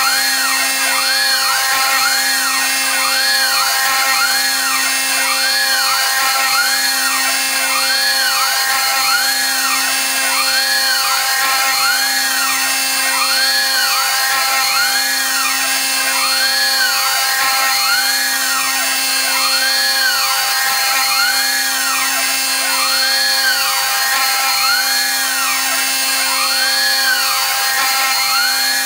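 CNC router spindle at 18,000 rpm with an end mill climb-milling a circular pocket in aluminum plate. It is a steady whine, and the cutting sound swells and fades in an even cycle a little faster than once a second as the tool goes round. The air blast clearing the chips adds a steady hiss.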